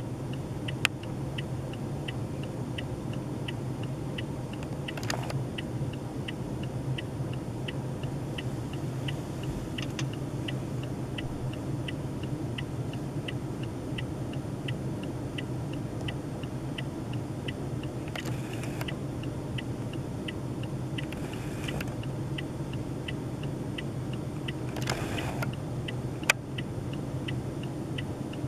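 A steady low hum with light, even ticking about twice a second, broken by a few brief noisy bursts and two sharp clicks, one near the start and one near the end.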